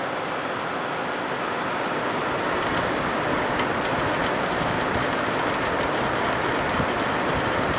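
Fans and pump of a water-cooled desktop PC running at power-on, a steady whoosh that gets a little louder about two seconds in.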